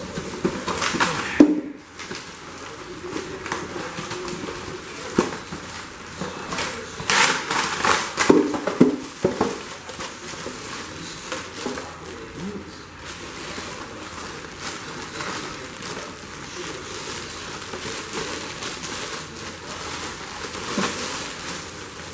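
Unboxing noise: rustling, crinkling and knocking of plastic packaging and the plastic parts of a Hoover Floormate hard floor cleaner being handled. The clatter comes in uneven spells, busiest near the start and again a third of the way in.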